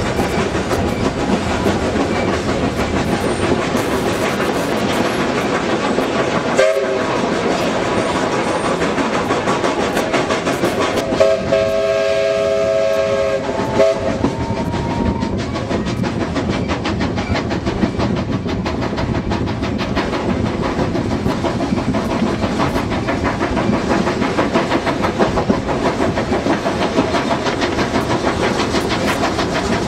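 Steam-hauled passenger train running on curving track, its wheels clattering steadily on the rails. The steam locomotive's whistle gives a short toot about seven seconds in and a longer blast of about two and a half seconds near the middle.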